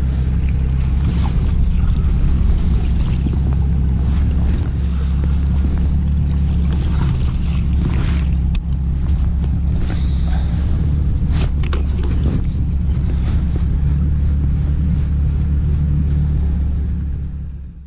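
Steady low rumble on a fishing boat in the wind, with scattered light clicks and splashes as a bucktail spinner lure is cast and reeled in on a baitcasting reel.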